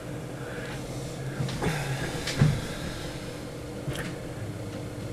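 A low steady hum with three soft knocks or clicks, about 1.7, 2.4 and 4 seconds in; the one near the middle is the loudest.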